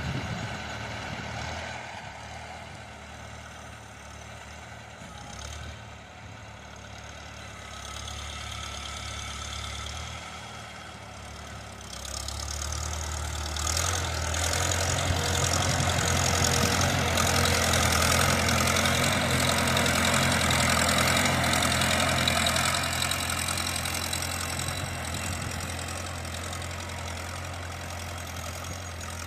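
Farmall C tractor's four-cylinder gasoline engine running steadily under load while pulling a plow. It grows louder about twelve seconds in and eases off again toward the end.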